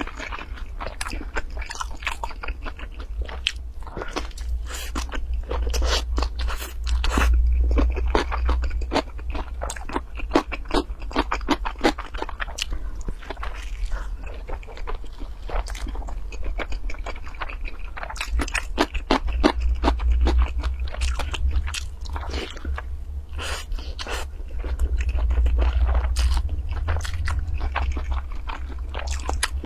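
Close-miked mouth sounds of someone chewing a stuffed roll: a dense, irregular run of wet crackling clicks and soft crunches. A steady low rumble runs underneath.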